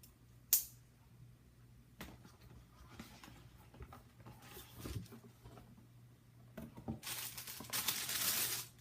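A sharp click about half a second in, then a few light knocks as a shoebox is handled. Near the end, tissue paper rustles and crinkles as it is pulled back from the sneakers.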